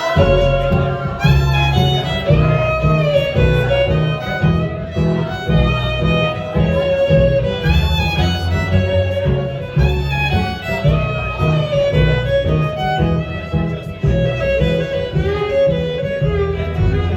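Live acoustic band playing the instrumental opening of the song: a fiddle carries the sliding melody over a steady, loud bass line and rhythmic accompaniment, with no singing yet.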